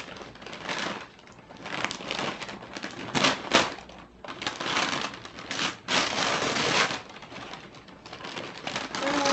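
Wrapping paper being torn and crinkled off a present, in a string of irregular ripping bursts.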